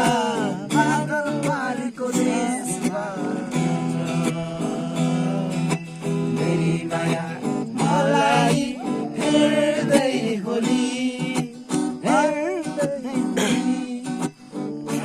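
A Nepali song: a singer over strummed acoustic guitar, the chords held steadily beneath the vocal line.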